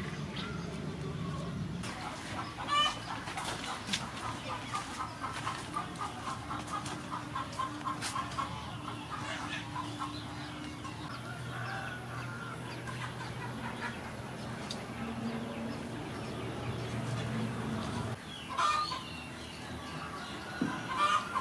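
Chickens clucking in a run of short repeated calls, with a few louder calls near the end, over a low steady hum that cuts off about three-quarters of the way through.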